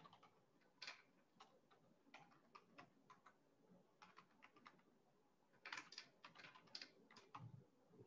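Faint typing on a computer keyboard: irregular single keystrokes, a short pause about five seconds in, then a quick run of keys.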